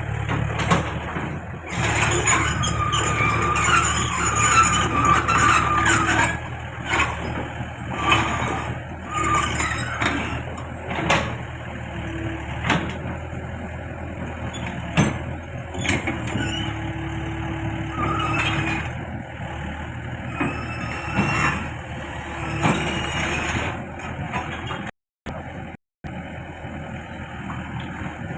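Backhoe engine running steadily, with high metallic squeals and scattered clanks as the machine moves during loading.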